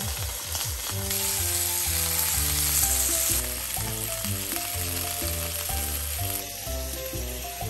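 Steak sizzling as it fries in a hot pan, loudest for a couple of seconds near the start and easing off toward the end, over background music with slowly stepping low notes.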